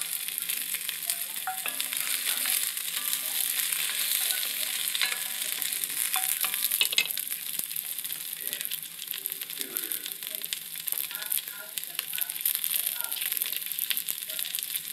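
Onion wedges sizzling and crackling in hot oil in an enameled cast-iron Dutch oven as they brown, stirred with a utensil at first.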